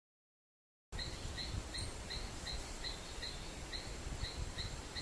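Wetland outdoor ambience that cuts in abruptly about a second in after silence. A short chirp repeats about three times a second over a steady hiss and low rumble.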